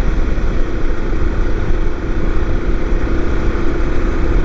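BMW F750GS motorcycle riding at steady highway speed: its parallel-twin engine holds one even tone under a heavy low rush of wind noise.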